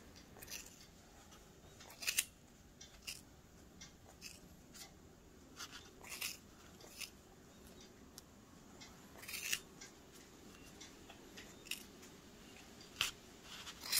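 Scissors snipping through the wound yarn loops of a pom-pom: a dozen or so short, sharp cuts at irregular intervals, some in quick pairs. The yarn bundle is wound tight.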